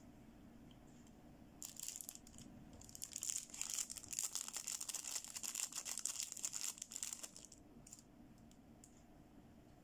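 Thin clear plastic wrapper crinkling and rustling in the hands as it is opened and a toy makeup brush is taken out of it. It starts about a second and a half in, is loudest in the middle and stops a couple of seconds before the end.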